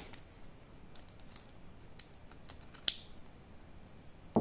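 Light plastic clicks and taps as wiring connectors are pushed onto a motorcycle CDI unit and handled, with one sharper click about three seconds in.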